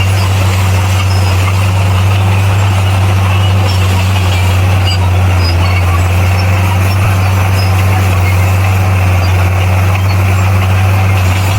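Bulldozer's heavy diesel engine running steadily with a deep, even hum and no change in speed.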